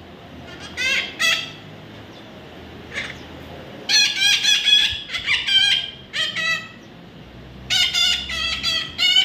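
A baby parrot squawking and chattering in runs of short, high, warbling calls: a couple of brief ones about a second in, a longer rapid string a little before the middle, and another near the end.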